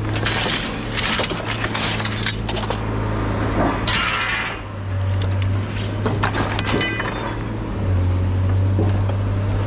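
Scrap being handled and knocked about: repeated clinks, knocks and clattering, busiest about four seconds in, over a steady low hum.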